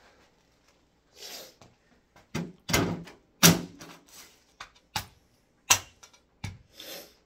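A series of about six sharp knocks as a wooden pole is beaten against a plastic CD/cassette stereo to break off its cassette door. The knocks fall irregularly over a few seconds, the loudest about halfway through.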